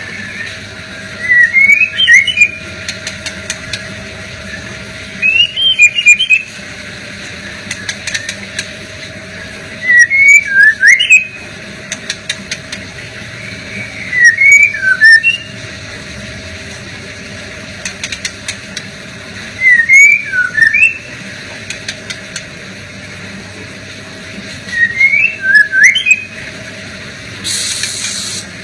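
Male white-rumped shama singing short whistled phrases of quick gliding notes, six phrases about four to five seconds apart.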